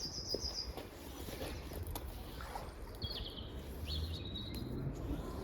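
A small songbird singing short, high, trilled phrases: one at the start and two more a little past the middle, over a low outdoor rumble.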